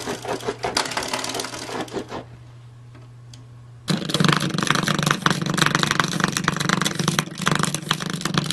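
Spring door stoppers twanging and rattling in rapid clatters as puppies paw and bite at them. A quieter pause comes about two seconds in, then a louder, busier stretch of rattling.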